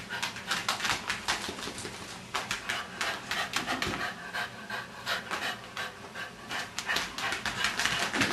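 Cocker spaniel panting in quick, uneven breaths, several a second, in spells with short pauses.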